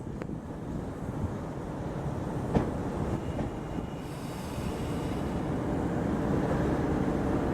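Tobu 60000 series electric train rolling slowly into a terminus platform, its wheels rumbling over the rails. A single sharp click comes about two and a half seconds in, and faint high tones join about halfway through.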